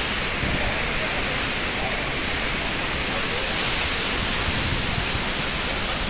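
Strong wind and the roar of a waterfall: a steady, even rushing noise, with gusts buffeting the microphone in a low, uneven rumble.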